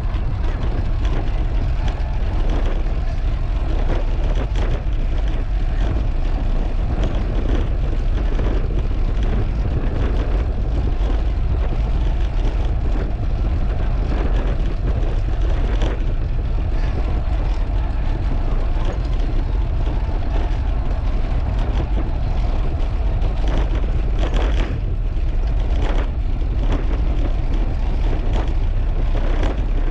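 Wind buffeting a GoPro's microphone during a bicycle ride, a steady rush heaviest in the low end, with a few brief knocks.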